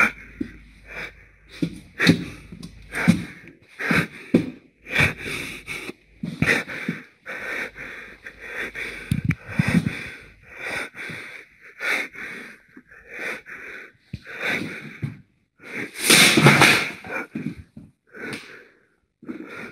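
Heavy, rapid breathing close to the microphone, a breath every half second to a second, with one louder breath about sixteen seconds in.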